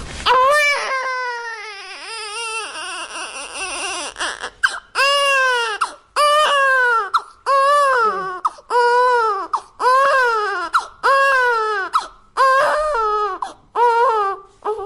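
Newborn baby crying. A long wavering wail comes first, then a run of separate cries, about one a second, each rising and falling in pitch.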